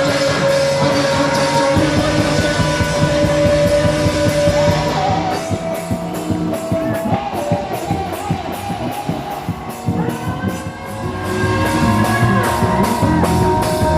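Rock music with singing and guitar, the held notes over a steady beat of drum hits. About five seconds in the music thins out for a while, then builds back up near the end.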